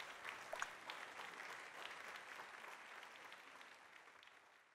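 Audience applauding, faint, dying away near the end.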